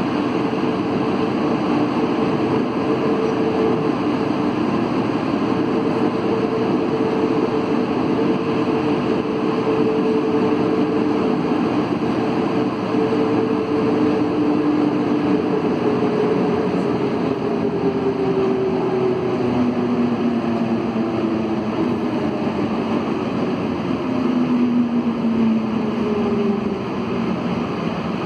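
CAF NS-07 rubber-tyred metro train running through a tunnel, heard from inside the carriage: a steady electric motor whine over loud rolling noise. Over the second half the whine falls in pitch as the train slows into a station.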